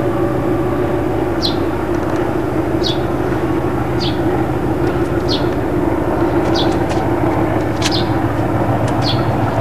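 A short, high, falling chirp repeats about every second and a quarter, typical of a bird's call, over a steady low rumble. There is a single sharp knock about eight seconds in.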